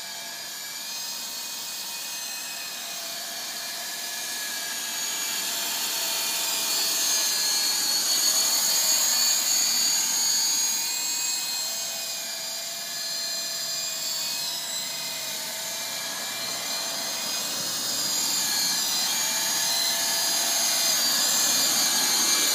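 Syma S33 coaxial RC helicopter flying: the electric motors and rotors make a whine whose pitch wavers up and down with the throttle. It grows louder as the helicopter comes close around a third of the way in, and again near the end as it sets down with its rotors still spinning.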